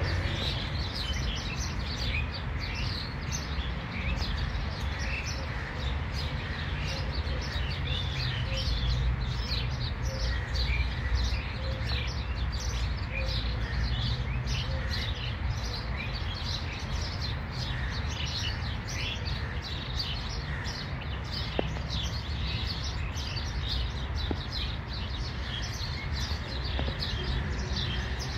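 Many small wild birds chirping and twittering at once in quick, overlapping calls, with a lower note repeated at an even pace through the middle stretch, over a steady low background rumble.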